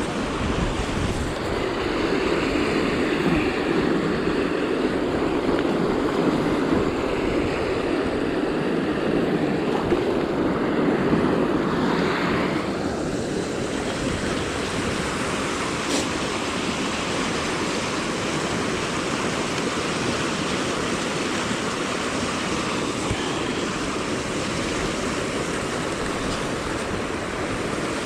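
Steady rush of flowing river water, an even noise without rhythm.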